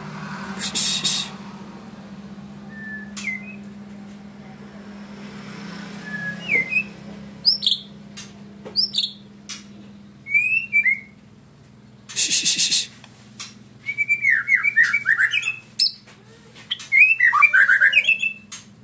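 White-rumped shama singing a varied song with pauses between phrases. Sliding whistled notes and sharp clicks are broken by two harsh rattling bursts, about a second in and about twelve seconds in. The song ends in fast, tumbling whistled phrases.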